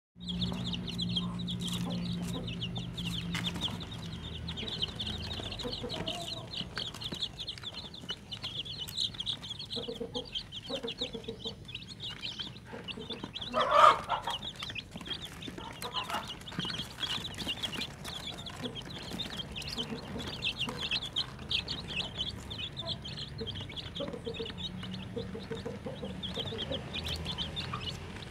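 Many young chicks peeping together in a continuous high-pitched chorus. About halfway through there is one brief, much louder burst as feed is tipped from a cup among them.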